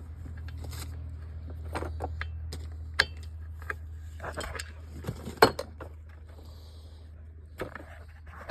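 Small metallic clinks and knocks of a compression tester's fitting being handled and threaded into a chainsaw's spark plug hole, one sharper knock about five seconds in, over a steady low hum.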